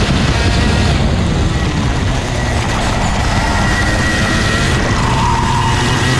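Racing kart's 125cc two-stroke TaG engine running on track, mixed with heavy wind rumble.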